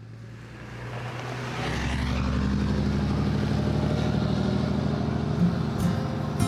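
Pickup truck driving past on a gravel road: the engine hum and the tyres crunching on gravel grow louder over the first two seconds as it passes close, then hold steady as it moves away.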